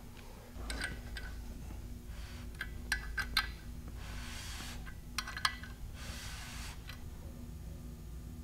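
Scattered metallic clicks and clinks, with two short rasps about four and six seconds in, as a socket wrench on the crank bolt turns the crankshaft of a bare 396 big-block Chevrolet engine to find top dead center.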